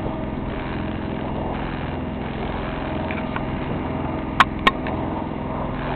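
A sailboat's engine running steadily under way, an even drone at one pitch. Two sharp clicks about four and a half seconds in.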